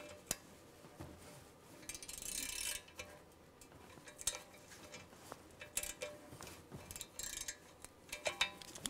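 Hand ratchet wrench clicking in short runs, with scattered metal clicks, as a rusted nut that has just broken free is backed off a turbocharger wastegate-plate stud.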